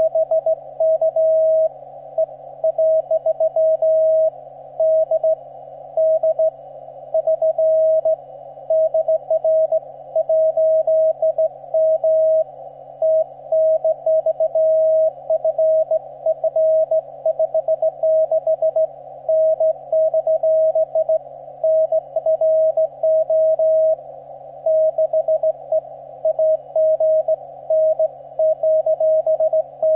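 Morse code (CW) received on a ham radio transceiver on the 15-metre band: a keyed tone of about 650 Hz sending dots and dashes at a steady pace, over band hiss narrowed by the 300 Hz CW filter, with a steady low hum underneath.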